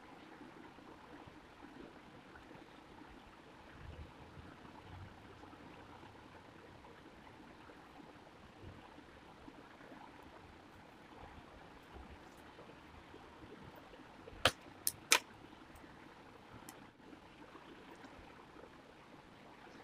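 Faint steady background hiss, with three sharp clicks in quick succession about two-thirds of the way through.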